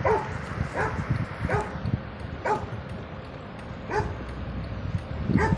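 A dog barking: about six short barks, spaced irregularly, over a steady hiss of rain.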